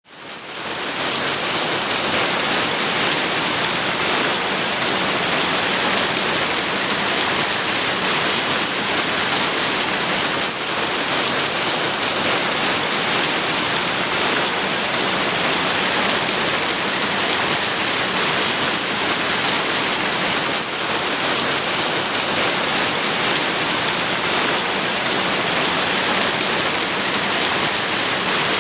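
Steady rushing of water, an even hiss with no pauses, fading in over the first second.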